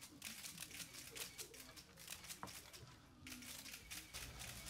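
Faint rustling and crinkling with scattered soft clicks.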